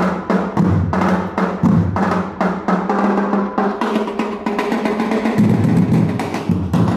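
Percussion music: drums beating a quick, dense rhythm over a held low note that changes about five seconds in.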